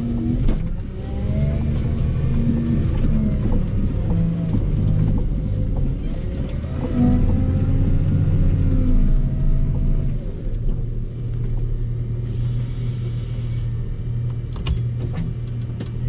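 Volvo L60H wheel loader's diesel engine working under load as it pushes snow with a front plow, its pitch and loudness rising and falling, with some whine and clunks, heard from inside the cab.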